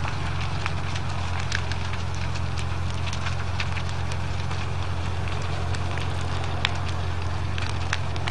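A fully involved house fire crackling, with frequent sharp, irregular pops and snaps of burning wood over a steady low rumble.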